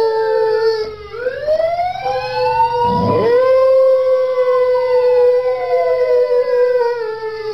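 A boxer dog howling in a long, siren-like wail together with a siren. The pitch dips about a second in, rises again, and sinks slowly near the end.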